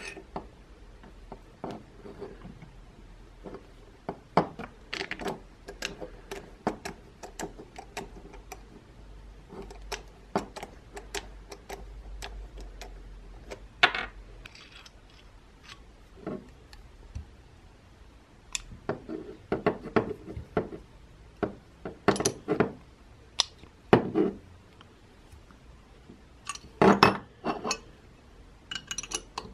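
Irregular small metallic clicks and clinks as the brass burner and valve parts of a gasoline blowtorch and a steel open-end spanner are handled and set down on a wooden workbench, with a few louder knocks.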